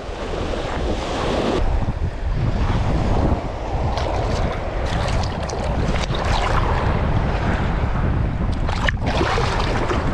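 Surf washing in over shallow water with wind buffeting the microphone, and a few short splashes as an arm holds a snook in the shallow water.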